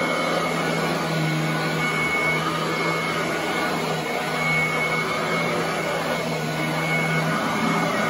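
Royal commercial upright vacuum running steadily as it is pushed over carpet, a low motor hum with a faint high whine that comes and goes.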